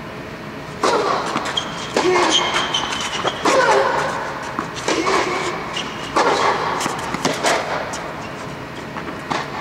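Tennis balls struck with rackets during a rally on a clay court, echoing under an inflated dome, over a steady fan hum; pitched calls or voices come with several of the sudden sounds.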